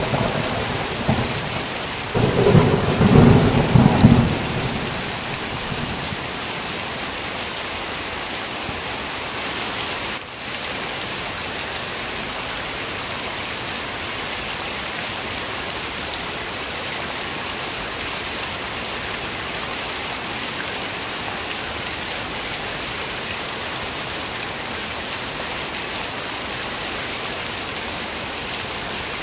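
Steady heavy rain with thunder: a rumble fades away just after the start and a second, louder rumble runs from about two to four and a half seconds in, then only the even hiss of rain, which drops out for a moment about ten seconds in.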